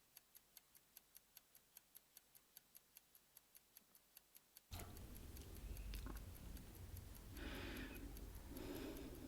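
Clock-style ticking, about four ticks a second, cuts off about five seconds in and gives way to a low background hum with a woman breathing quietly, two soft breaths near the end.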